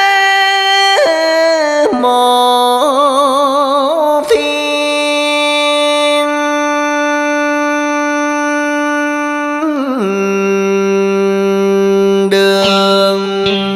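Cải lương music: one melodic line drawn out on long held notes. It wavers with vibrato about three seconds in, holds one steady note for about five seconds, then slides down to a lower held note about ten seconds in.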